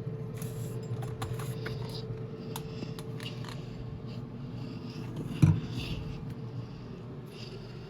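Kitchen appliance fan running with a steady low hum, with a few faint clicks and a single thump about five and a half seconds in.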